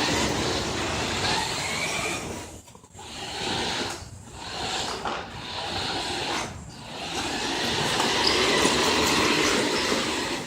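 Radio-controlled car driving: its motor and drivetrain run with the tyres rolling. The sound drops out briefly three times, about two and three-quarter, four and six and a half seconds in, then runs steadily to the end.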